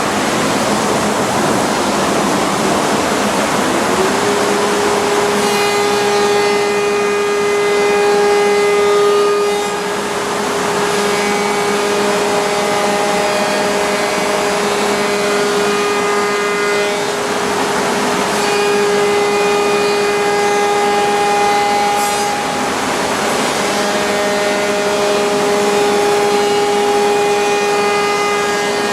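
CNC router milling wood. Its spindle whine rises about four seconds in and then holds steady over a constant rushing noise. A shrill, many-toned cutting sound comes and goes in passes of several seconds each.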